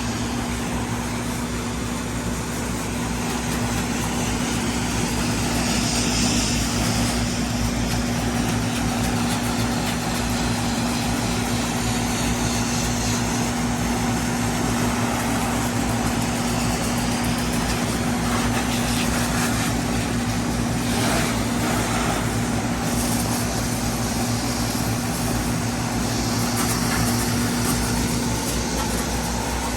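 Small gasoline engine of a soft-wash roof pump running at a steady speed while chemical is sprayed, over a steady hiss. Its even hum drops out near the end.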